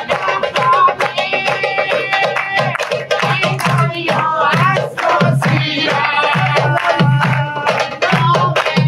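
A group of men singing together to a hand drum, with the beat kept by hand-clapping.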